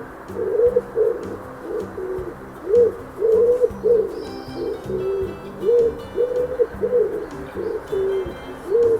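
Dove cooing: a long run of short, low coos, each rising and falling, about one a second, over a steady background hiss.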